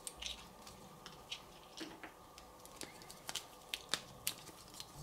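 Faint, irregular clicks and crinkles of a DisplayPort cable being handled and unwrapped from its packaging, a dozen or so small ticks spread unevenly.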